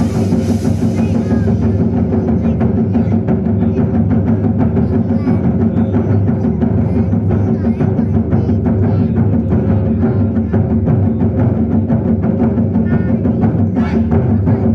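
Ensemble of large drums played in a loud, fast, unbroken stream of strokes. A high shimmering wash sounds over the drums at the start and fades out within about two seconds.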